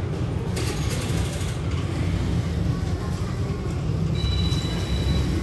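Diesel passenger train idling at a platform: a steady low engine rumble. A hiss lasting about a second starts about half a second in, and a thin, high, steady tone comes in near the end.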